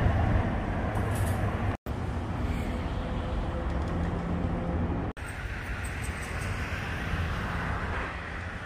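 Steady outdoor street noise with a low traffic rumble. It drops out abruptly for an instant about two seconds in and dips again about five seconds in.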